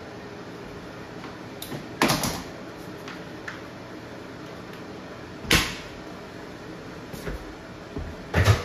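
A few sharp knocks and clatters from tools and materials being handled. The loudest comes about two seconds in, another about five and a half seconds in, and two close together near the end, over a steady faint hiss.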